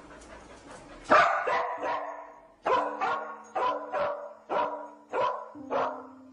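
A police search dog barks in a steady run of sharp barks, about two a second, starting about a second in after some panting. The barking is its trained alert signal that it has found a scent at the car. Slow music with held notes plays underneath.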